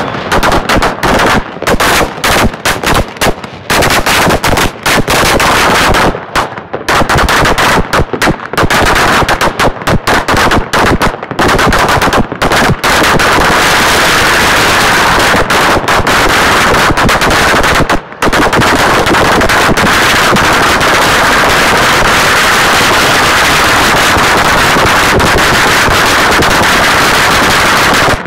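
A 100,000-shot roll of Chinese firecrackers going off in a rapid rattle of bangs. For the first dozen seconds it comes in uneven spurts with short gaps, then it runs together into one unbroken crackle, with a single brief pause later on.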